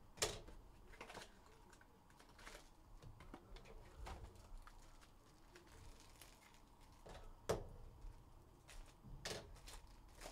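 Faint scattered clicks and crinkles of a trading-card box being opened and the foil-wrapped card pack inside being handled and torn open. The sharpest click comes about seven and a half seconds in.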